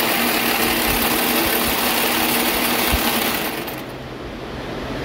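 Gladding electric maypole braider running fast under foot-pedal control, its bobbin carriers whirling round the deck as a loud, even mechanical noise. About three and a half seconds in, the pedal is released and the braider runs down to a stop, leaving a quieter steady hum.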